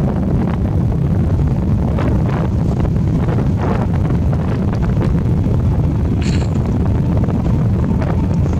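Wind buffeting the microphone of a moving motorbike, a loud steady low rumble, with the bike running underneath it. A short high-pitched sound comes through about six seconds in.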